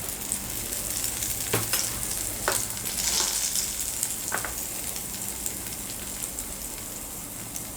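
Egg-dipped bread slices sizzling in hot ghee in a frying pan, a steady hiss, with a few light knocks about one and a half, two and a half and four and a half seconds in.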